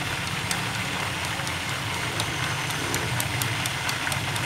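Chopsticks beating eggs in a ceramic bowl, with scattered light clicks against the bowl, over a steady low mechanical hum.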